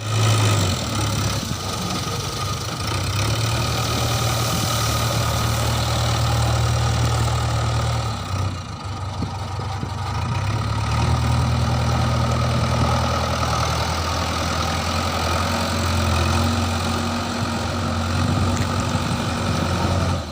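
A heavy diesel engine idling steadily, dipping briefly about eight seconds in.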